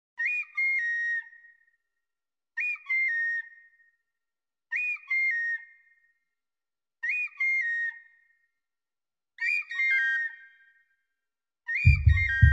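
Background music: a short whistle- or flute-like phrase of a few stepped notes, falling at its end, repeated six times with a pause between each. Near the end a beat with drums and bass comes in.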